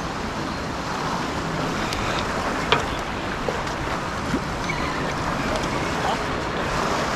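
Steady wind buffeting the microphone over choppy open water, with a few light clicks, the sharpest about a third of the way in.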